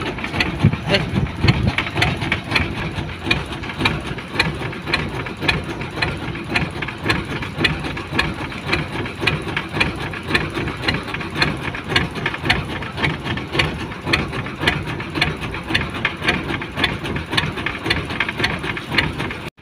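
Boat engine idling steadily, with a rapid, even knocking beat.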